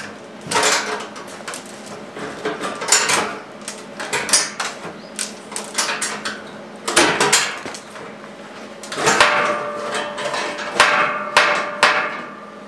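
A checker-plate metal box being set down and shifted on a steel frame: irregular metal clanks and knocks, some ringing briefly.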